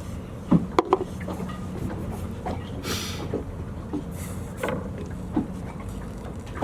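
Wind rumbling steadily on the microphone, with scattered light knocks and clicks and a brief rustle about three seconds in.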